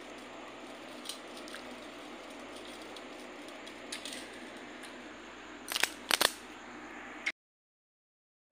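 Steel plate and bowls clinking as a meal of water rice is handled: a few faint clicks, then a quick run of three sharp clinks about six seconds in, over a steady hiss. The sound cuts off to dead silence about a second before the end.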